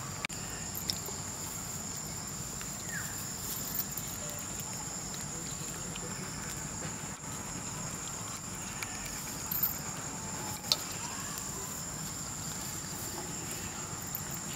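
Steady high-pitched drone of insects, with a few scattered sharp clicks.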